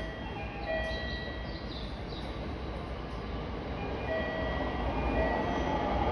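Electric train running on the line, a steady rumble that grows louder near the end, with several high steady tones that start and stop over it.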